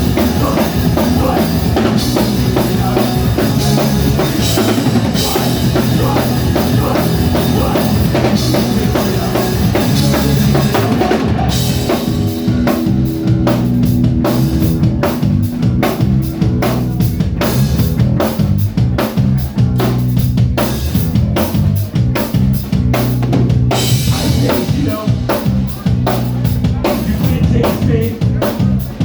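Live rock band playing an instrumental passage with a full drum kit, bass and guitar. The drums are driving and the cymbals wash over the first part, thin out about twelve seconds in to leave plain drum hits, and return near the end.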